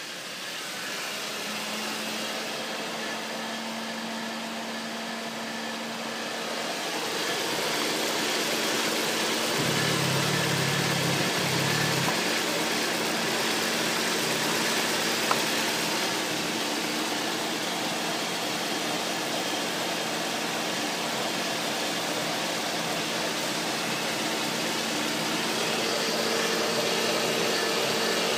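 Ford Mondeo III 2.0 litre CJBA Duratec four-cylinder petrol engine idling steadily, heard up close under the bonnet. It gets a little louder from about seven seconds in.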